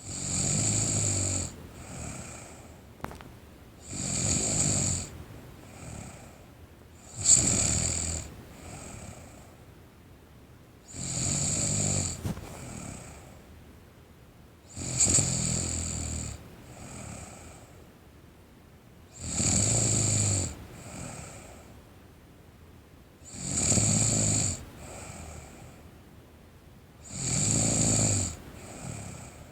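A sleeping teenage girl snoring: eight loud, rattling snores at a steady pace of about one every four seconds, each followed by a softer breath.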